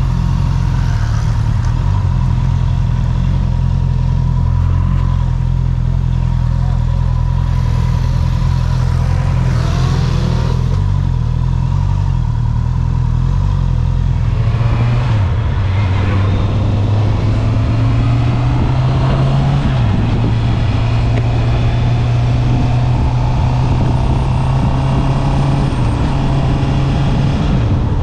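Stock 2020 Honda CB650R's inline-four engine running under way. The engine note holds steady for about the first half, then rises and falls several times as the bike accelerates and shifts, with wind and road noise.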